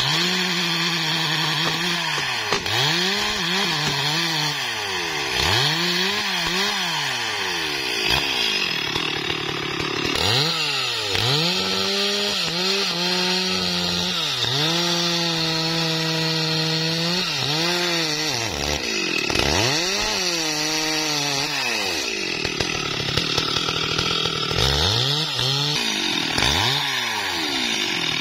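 STIHL MS 382 two-stroke chainsaw cutting through a large felled tree trunk, its engine pitch dipping and climbing again and again as the chain bites and frees. In the middle it holds one steady high pitch for several seconds of continuous cutting.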